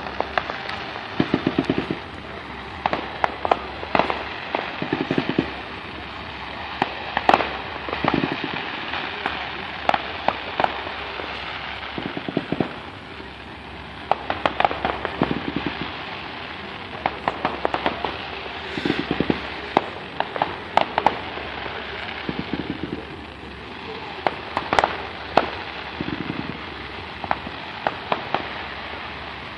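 Aerial fireworks display: shells bursting in irregular sharp bangs and pops, several every few seconds.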